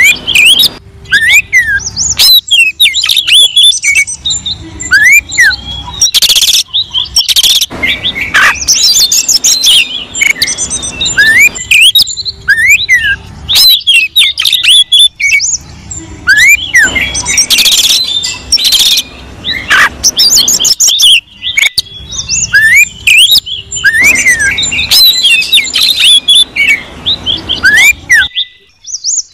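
Oriental magpie-robin (kacer) singing loudly: a dense, varied song of quick whistles and chattering notes, with a rising-and-falling whistle that recurs every few seconds. It is the agitated song of a male challenging a rival. The song cuts off shortly before the end.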